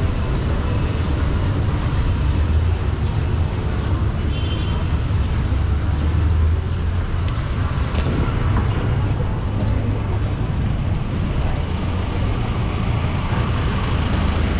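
Steady street traffic: the engines and tyres of passing cars and jeepneys make a constant low rumble.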